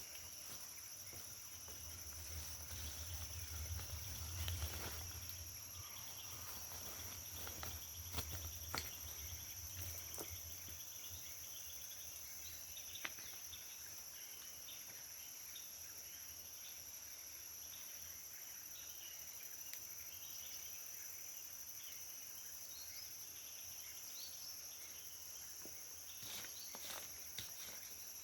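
Steady, high-pitched drone of forest insects in two steady tones, one above the other. There is a low rumble and scattered clicks in the first ten seconds.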